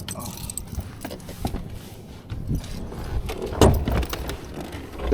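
Scattered clicks, knocks and rattles of a car door and gear being handled, with a heavier knock about three and a half seconds in and a loud thump at the end.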